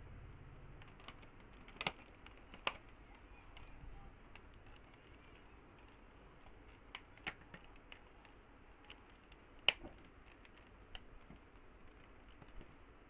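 Irregular sharp plastic clicks and taps as a Huawei 5V5 modem's white plastic casing is pressed and snapped shut by hand, about a dozen clicks spaced unevenly, the loudest about two-thirds through.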